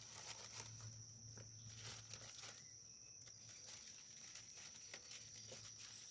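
Near silence: faint paper rustles and light clicks from a booklet being handled, over a steady faint high-pitched tone and a low hum.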